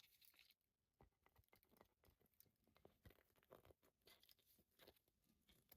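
Near silence, with faint scattered small clicks and rustles from a rubber RC crawler tire being handled.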